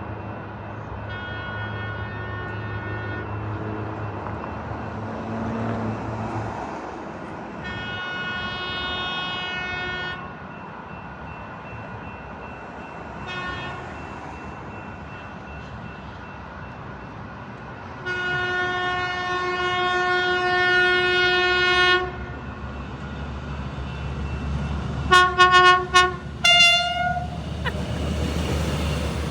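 Locomotive multi-chime air horn sounding the grade-crossing signal: two long blasts, one short, then a longer final blast. A quick series of short toots follows near the end, over the low steady running of the diesel engine.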